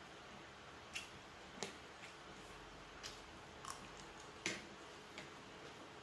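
A person chewing food close to the microphone, heard as about seven sharp, irregular crunching clicks over a faint background, the loudest about four and a half seconds in.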